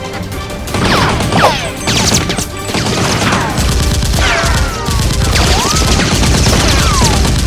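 Rapid gunfire sound effects starting about a second in, with several falling whistles like passing rounds, laid over background music.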